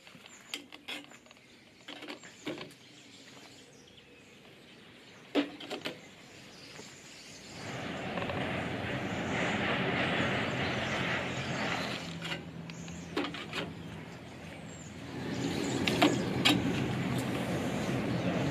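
A few scattered clicks and knocks of metal parts being handled, then an angle grinder with a flap disc, clamped in a homemade stand, starting up about halfway through and running steadily. It dips briefly and comes back, with a couple more sharp knocks near the end.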